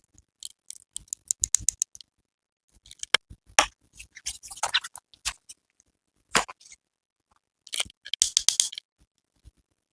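Product packaging being handled and opened: a string of sharp clicks and taps with short crinkly rustles of cardboard and plastic, coming in clusters with silent gaps between.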